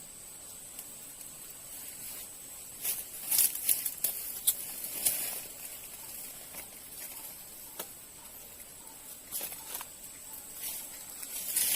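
Quiet outdoor ambience: a steady high hiss with scattered light clicks and rustles, clustered about three to five seconds in and again near the end.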